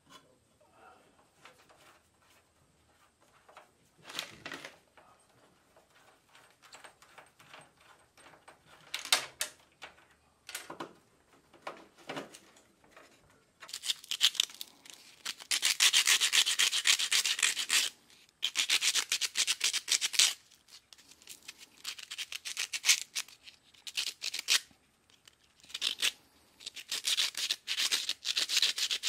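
Sandpaper rubbed back and forth over the corroded contact prongs of a garden tractor's ignition key switch, starting about halfway through in long runs and then quick short strokes. Before that, only scattered light clicks and knocks.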